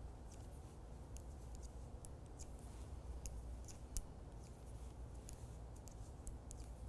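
Light, irregular clicks of circular knitting needle tips tapping together as stitches are purled across a row, about two or three a second.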